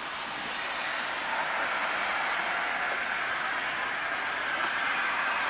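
Steam hissing steadily from Kitson & Co 0-6-0T tank locomotive A.No.5 while it is in steam for its boiler steam test, growing slightly louder.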